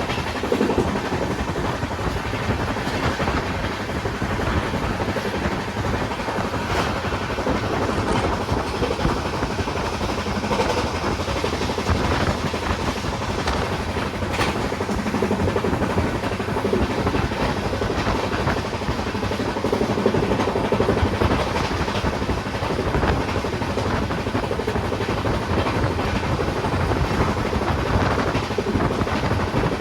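Indian Railways train running steadily: a continuous rumble with a few sharp clicks.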